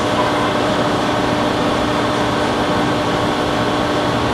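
Steady mechanical drone with a constant low hum, holding the same level throughout.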